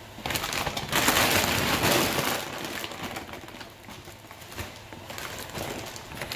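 Dry dog kibble being scooped and poured into a plastic zip-top bag: a loud rattling rustle of kibble and crinkling plastic for the first couple of seconds, then quieter rustling and small clicks.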